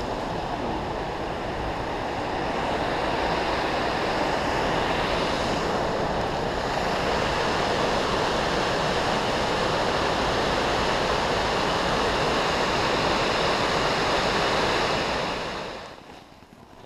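Waterfall and creek rushing, a steady even wash of falling water that drops away suddenly near the end.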